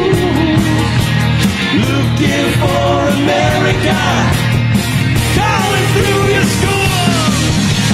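Live rock band playing loud and without a break: electric guitars, bass guitar and a drum kit, with a melodic lead line bending up and down over the backing.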